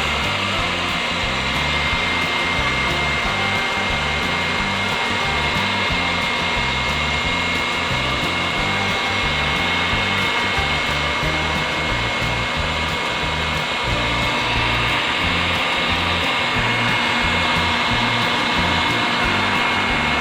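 Homemade mini vacuum cleaner running: a small battery-powered motor spinning a salvaged hair-dryer fan blade, giving a steady whirring rush with a constant high whine.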